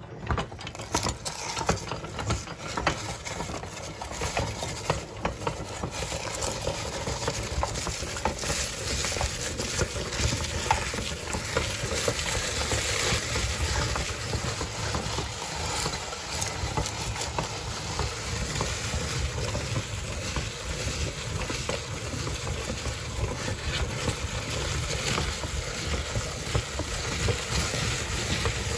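Meat grinder crushing crisp onion-ring snacks and ridged potato chips: a steady, dense crackling crunch as the snack is ground and pressed out through the grinding plate.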